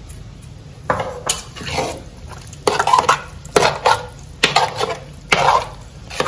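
Steel ladle stirring and scraping through curd rice in a large metal pot, knocking against the pot several times. The strokes start about a second in and come irregularly.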